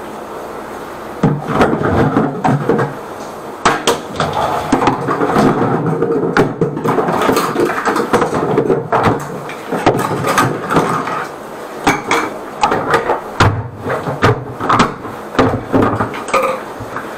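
Drain-clearing machine working on a clogged drain line: a steady motor hum, then from about a second in, loud irregular knocking and rattling that goes on with only short pauses.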